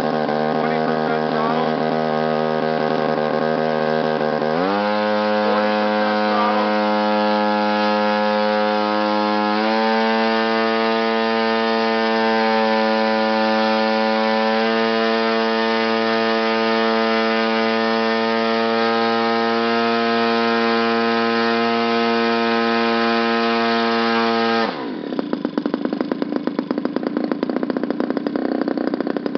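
OS GT55 single-cylinder two-stroke gasoline engine driving a carbon propeller on a thrust stand, stepped up in pitch about every five seconds as the computer raises the throttle in stages toward full power, about 7,000 RPM. About five seconds before the end it drops back to a lower, uneven idle.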